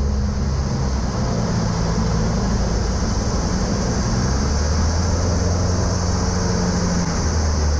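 Cessna Aerobat's piston engine and propeller droning steadily, heard inside the small cabin, with a steady hiss over the top.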